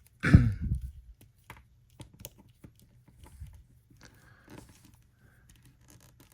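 Small plastic clicks and rustles as an action figure's backpack is worked onto the peg on the figure's back, with a louder handling bump about half a second in. The backpack will not seat because the peg is too short for the angle.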